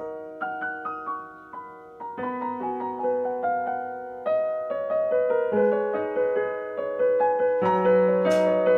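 Background piano music: single notes struck one after another over lower held notes.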